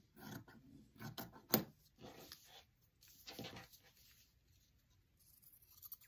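Scissors snipping through stretchy knit fabric pinned to a paper pattern: a few short, irregular cuts over the first three seconds or so, then faint rustling of the paper and fabric.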